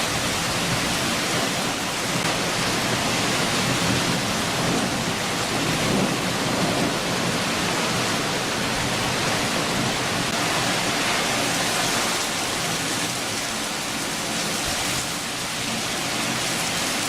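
Heavy downpour of rain falling steadily, with thunder rumbling low about four to seven seconds in.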